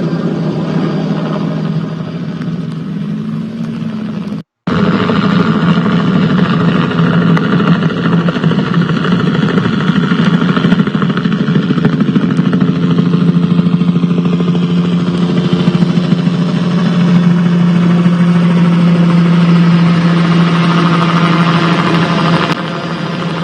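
An engine runs steadily with a constant low hum. The sound cuts out completely for a moment about four and a half seconds in, then resumes.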